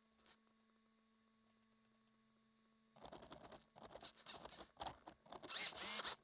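RC car's electric motor and drivetrain picked up by the onboard camera. A faint steady electronic hum at first, then from about three seconds in, bursts of whirring that rise and fall, with gritty scraping from the wheels on the asphalt.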